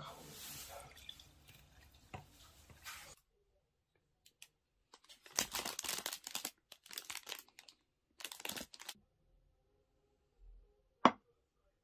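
Water poured from a plastic bottle into a glass, then a clear plastic pastry wrapper crinkling loudly in bursts as it is handled and opened. A single sharp knock sounds near the end.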